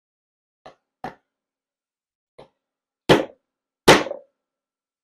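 Mallet striking a snap-setter tool to set a new snap button into a jacket cuff: a few light taps, then two hard blows a little under a second apart.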